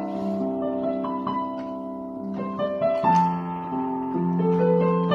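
Electronic keyboard played in a piano voice: a slow melody of held, overlapping notes, with a new note struck about every half second to second.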